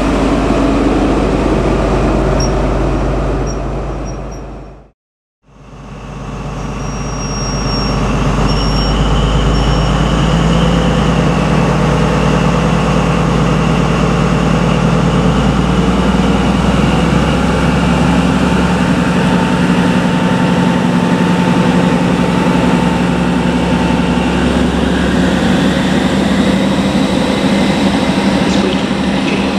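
Class 43 HST power car with a Paxman VP185 diesel engine. For the first few seconds a train runs through at speed, and the sound fades out about five seconds in. Then the VP185 runs at a standstill or crawl: a steady engine drone with a high, steady whine above it, the 'scream' typical of the VP engine.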